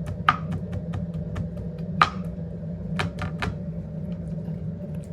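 Kitchen knife clicking and knocking against a cutting board in an irregular run while chicken breast is cut into thin slices, with two sharper knocks, over a steady low hum.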